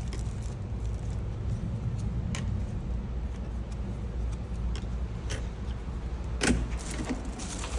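Street noise: a steady low rumble of road traffic, with a few sharp clicks and knocks, the loudest about six and a half seconds in.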